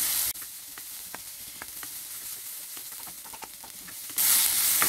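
Sliced onions frying in oil in an iron kadai, sizzling, with a wooden spatula stirring and scraping them. The sizzle drops off abruptly about a third of a second in, leaving a faint hiss with scattered light scrapes and taps. It comes back loud about four seconds in.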